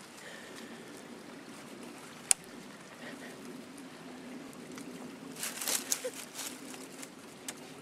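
Dry leaves and sticks crackling as a hand digs and reaches into a hole under a fallen branch. There is one sharp snap about two seconds in and a burst of crackling about five to six seconds in.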